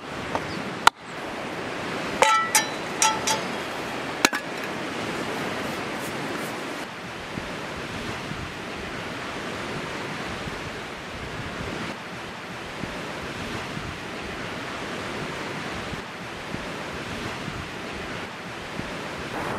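Steady wash of lake waves on the shore, with some wind, after a few ringing clinks and knocks near the start.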